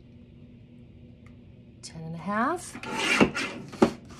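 Paper being cut on a paper trimmer: a short rasping slide that builds to a sharp click, with a second click just after, near the end.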